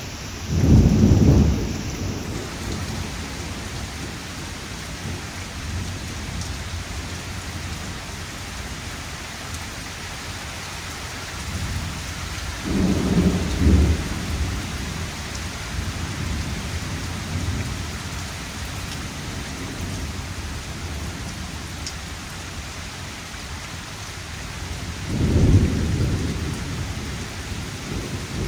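Heavy rain falling steadily, with three low rolls of thunder: one about a second in, one near the middle, and one near the end.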